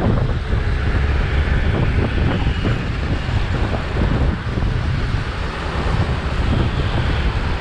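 Wind rushing and buffeting over the microphone of a moving motorcycle, with the bike's engine and road noise underneath.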